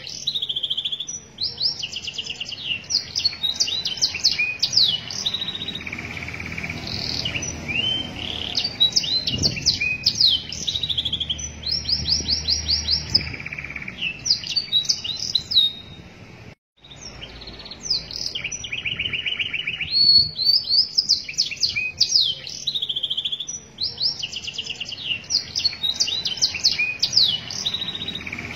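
Domestic canary singing a long, varied song of rapid trills and quickly repeated chirps, with one momentary break a little past halfway.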